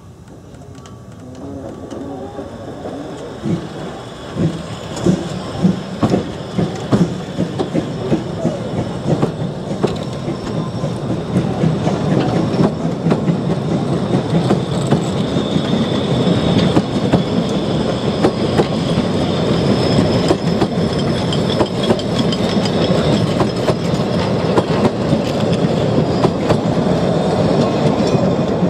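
Narrow-gauge railway carriages rolling along the track, their wheels clicking over the rail joints in a regular rhythm, with a thin wheel squeal about halfway through. The rumble grows steadily louder.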